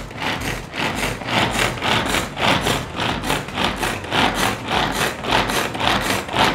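Manual pull-cord vegetable chopper being worked by repeated tugs on its spring-action cord, about three pulls a second. Each pull zips the cord out and whirrs the blades round through onion pieces in the plastic bowl.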